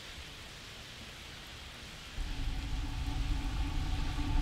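A steady soft hiss, then about two seconds in a louder low motor hum with a steady droning tone starts suddenly and grows slightly louder.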